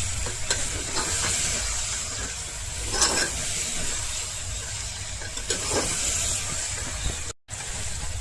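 Chicken gravy sizzling in a pan: a steady hiss with a few light knocks and scrapes, cutting out briefly near the end.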